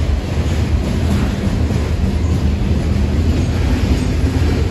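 Loaded coal hopper cars of a freight train rolling past on the rails: a steady low rumble of wheels and cars.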